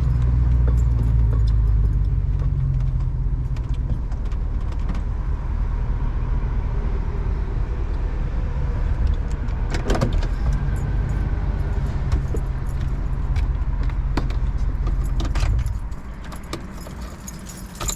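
Car cabin noise: a steady low rumble of the engine and road, with scattered light clicks and rattles. The rumble drops off sharply about two seconds before the end.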